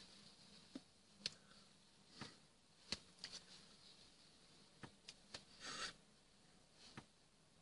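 Faint handling sounds of a person signing: scattered light clicks and taps as hands and fingers meet, with a brief rustle of a tracksuit sleeve about six seconds in.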